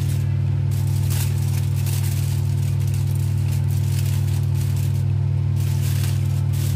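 Aluminium foil crinkling in short rustles as it is pressed and folded over a tray, over a loud, steady low hum.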